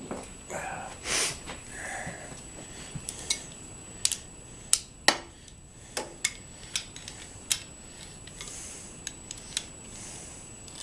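Irregular sharp metallic clicks and clinks of hand tools and hardware being handled while the loose bolt holding the bushing is tightened, over a faint steady high-pitched whine.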